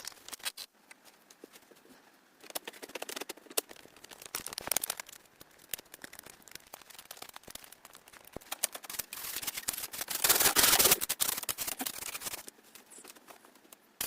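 Close, irregular clicks and crackles of small materials being handled, with a louder rustling stretch of about two seconds around two-thirds of the way through.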